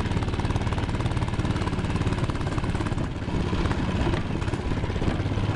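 Baja Blitz Doodle Bug mini bike's small single-cylinder four-stroke engine running under throttle while the bike is ridden, with a brief dip in engine note about three seconds in.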